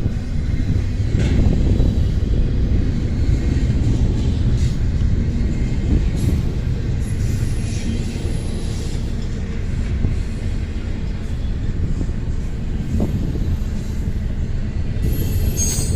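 Train cars rolling past in a steady low rumble, with a few faint clanks.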